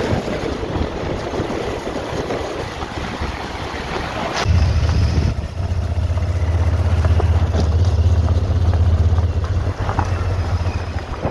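A motorcycle on the move, heard as wind rushing over the microphone with the engine and road noise underneath. About four and a half seconds in, a heavy steady low rumble joins the rush.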